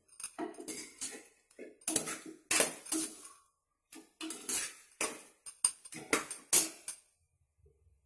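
A slotted steel spoon scrapes and clinks against the inside of a metal pressure-cooker pot as chicken pieces are stirred and fried in oil. The strokes come in an irregular run of several a second and stop about seven seconds in.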